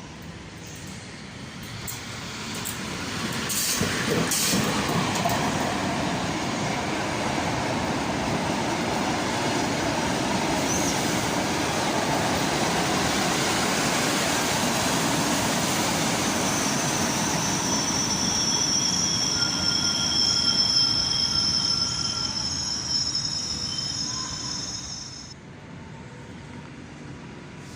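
Train running through a railway station, getting louder over the first few seconds, then steady. In the second half its wheels squeal in high whines, and the sound drops off suddenly near the end.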